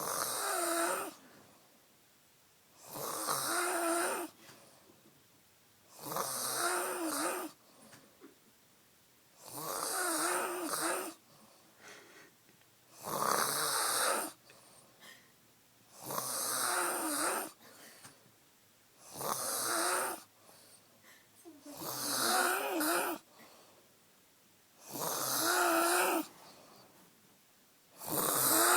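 A woman passed out drunk, snoring loudly with a rasping, buzzing snore on each in-breath, about every three seconds and steady in rhythm.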